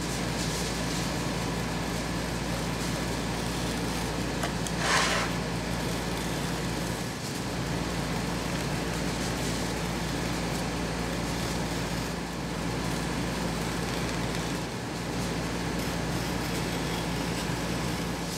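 Steady low mechanical hum with hiss, with one brief scrape about five seconds in.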